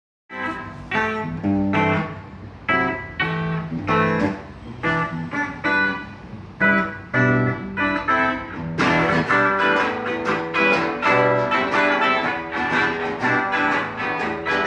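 Instrumental song intro on guitar: plucked notes and chords, each ringing out. About nine seconds in the sound fills out and brightens into a denser strummed accompaniment.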